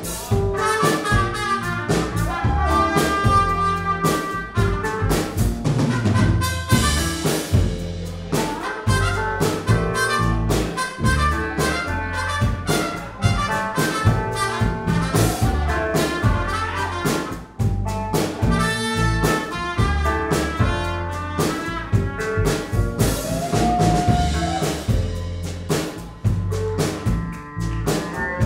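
Live band playing: a trumpet carries sustained lead notes over electric guitar, cello and a drum kit keeping a steady beat.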